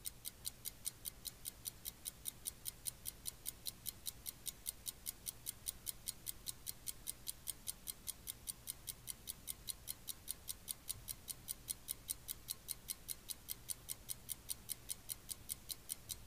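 Faint, steady, fast clock-like ticking, about five ticks a second, over a low hum: a ticking sound effect in a TV documentary's opening-title music.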